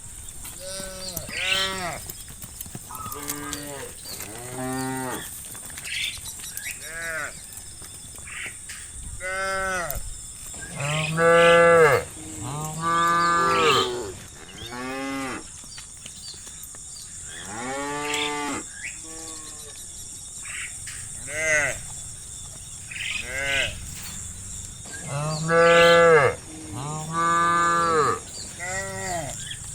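Cattle mooing again and again, a dozen or so calls from more than one animal, some overlapping, each call rising and then falling in pitch. The loudest are two pairs of long moos, one pair about a third of the way in and another near the end.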